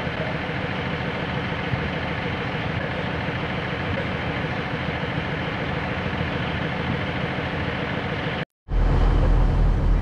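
Diesel train engine idling with a steady hum. After a brief dropout about eight and a half seconds in, it returns as a louder, deeper engine rumble.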